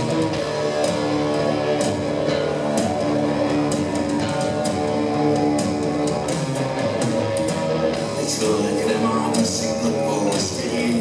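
A rock band playing live: two electric guitars, electric bass and a drum kit, with cymbal hits throughout.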